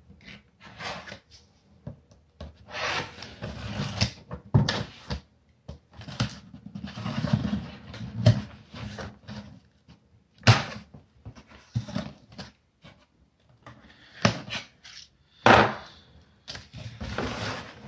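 Hands opening a taped cardboard shipping box: scratchy tearing and rubbing of tape and cardboard in irregular stretches, with a few sharp knocks of the box against the table.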